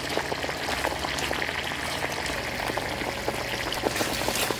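Chicken tteokbokki in thick gochujang sauce simmering in a pan, bubbling and popping steadily as the sauce reduces, while wooden spatulas stir through it.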